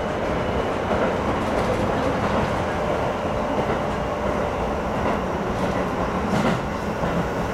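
Keisei 3000 series electric train running at speed, heard from inside the front car: a steady rumble of wheels on rails, with a clack from the rail joints about six seconds in.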